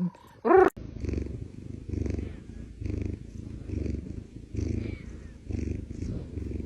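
Domestic cat purring close up, a low rough rumble that swells and fades about once a second, after a brief pitched call about half a second in.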